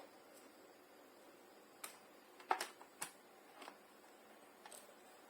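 A handful of small, sharp clicks and taps from hard plastic laptop parts being handled as a part is fitted back into the laptop, the loudest about halfway through.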